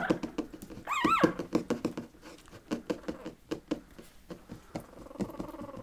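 Newborn Patterdale Terrier puppies, about three weeks old, squeaking and whimpering, with one high rising-and-falling squeal about a second in and a softer whine near the end. Many light taps and scratches sound throughout.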